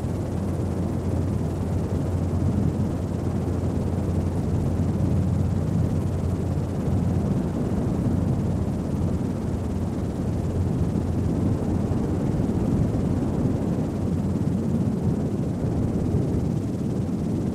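Steady low rumble of the aircraft carrying the camera, heard from on board, unchanging throughout.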